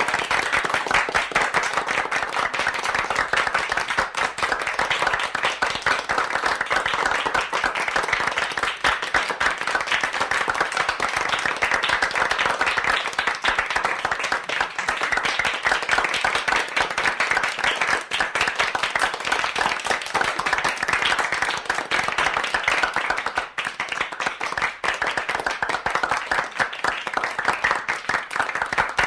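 Medium-sized crowd applauding: many hands clapping in a dense, steady patter that keeps up without letting off.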